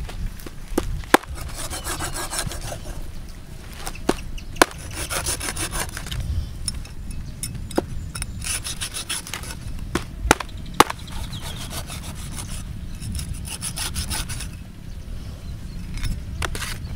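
A steel cleaver scraping repeatedly across the skin of a stingray on a wooden chopping block, in rasping strokes a second or two long. A few sharp knocks are heard, about a second in, around four seconds, near eight seconds and twice near ten seconds.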